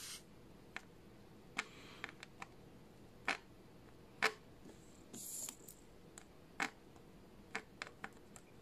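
Rosin-core solder and a soldering iron tip drag-soldering the pins of a flat-pack IC: faint scattered ticks and small pops, with a brief hiss about five seconds in as the flux boils off and smokes.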